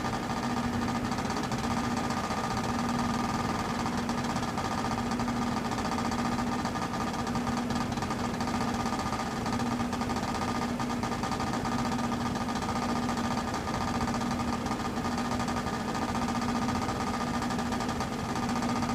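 Heat pump running with a steady hum and a fast, continuous mechanical rattle, the kind of unusual noise its owner calls crazy.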